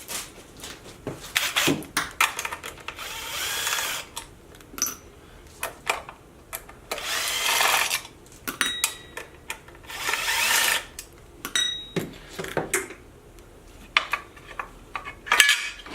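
Power impact driver with a 3 mm hex bit running in short bursts, about a second each, to back out small hex bolts, with clicks and clatter of the tool and bolts between bursts.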